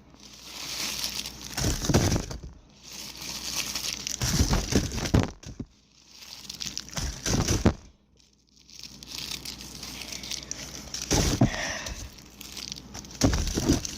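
Firework packaging crinkling and rustling as it is handled, in several bursts with short pauses and a few low knocks.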